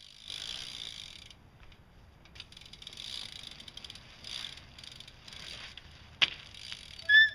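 BMX bike being handled: bursts of hiss with fine ratcheting clicks, a sharp click about six seconds in, and a brief high squeak near the end, the loudest sound.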